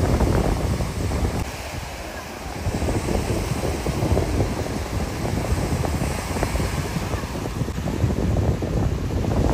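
Surf breaking and washing up on a sandy beach, mixed with wind buffeting the microphone.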